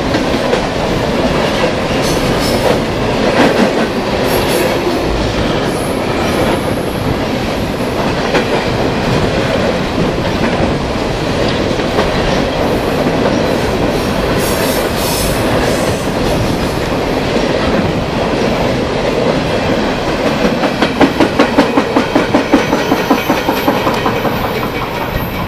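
Empty CSX coal hopper cars rolling past at close range: a loud, steady rumble and rattle of steel wheels on rail. Near the end comes a quick run of rhythmic clacks, about three or four a second, as wheels cross a rail joint, and the sound eases slightly as the last car goes by.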